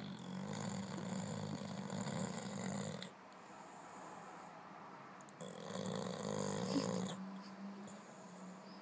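Sleeping boxer dog snoring: two long snores, the first at the start and the second about five and a half seconds in, each lasting around two to three seconds, with a quieter spell between them.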